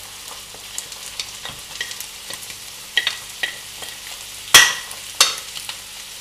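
Tuna and onion frying in olive oil in a pan, a steady sizzle, as cooked white beans are scraped off a china plate into it with a spoon. A few sharp clinks of spoon and plate, the loudest about four and a half seconds in.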